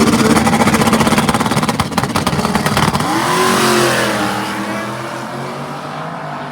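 Drag race cars running at full throttle down the strip. The engine pitch drops and rises again about three seconds in, then the sound fades as the cars move away.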